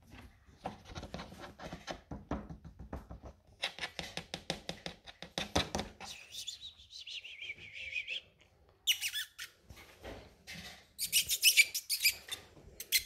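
Kittens' claws scratching and clicking on a hard cat-tree compartment, with a high squeak lasting about two seconds around the middle. Near the end come quick bursts of claws clicking on a tiled floor as the kittens trot about.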